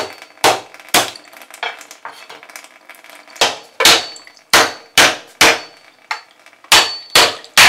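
Back of a chef's knife striking cooked lobster claws on a wooden chopping board, cracking the shells open: about a dozen sharp knocks at irregular intervals.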